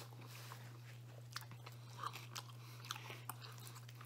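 Faint chewing of pizza crust, with scattered small mouth clicks and smacks over a steady low hum.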